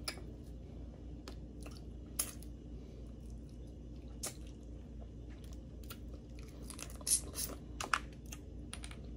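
Boiled crawfish being peeled and eaten: shells cracking and tearing, with quiet chewing and wet squishing. A few sharp cracks are scattered through, the loudest about seven to eight seconds in.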